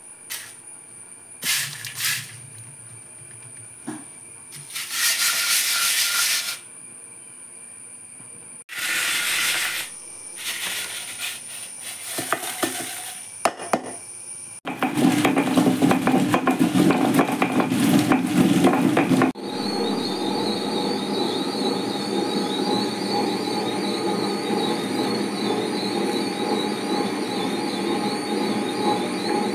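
A few short kitchen handling sounds, then an electric mixer grinder running loudly for several seconds, grinding dried red chillies and turmeric into a masala paste. After a sudden change, a steady even running noise follows.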